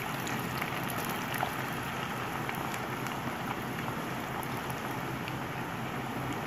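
Par-boiled potato fries deep-frying in hot oil in a karahi: a steady sizzle and bubbling with many small crackles and pops.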